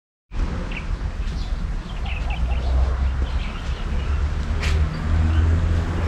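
Small birds chirping in short, scattered calls over a steady low rumble, with a single sharp click about two-thirds of the way through.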